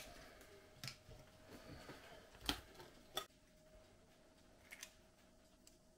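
Faint clicks and taps of eggshells as eggs are cracked and separated by hand, a few scattered taps with the loudest about two and a half seconds in.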